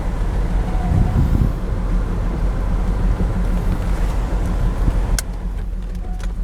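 Toyota LandCruiser driving over a corrugated dirt track: a steady engine and tyre rumble with a rough, juddering texture, and a sharp click about five seconds in.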